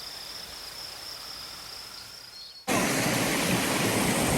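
Crickets or other insects trilling steadily at a high pitch over a soft outdoor background, then about two and a half seconds in the sound cuts abruptly to loud rushing water, like a stream or small waterfall.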